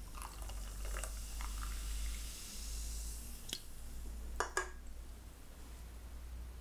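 A cup and tableware handled at a table: a soft hiss with faint ticks, a sharp click, then two clinks close together as the drink cup is set down beside the plate.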